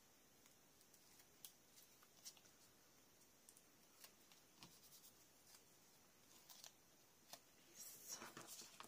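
Near silence with faint scattered snips of craft scissors cutting paper, then a brief rustle of paper near the end as a paper banner is handled.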